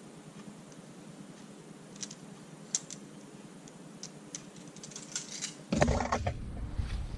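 Scattered light clicks and rattles as a metal tape measure and nylon webbing strap are handled. About three-quarters of the way through, a louder stretch of rustling and knocking handling noise close to the microphone.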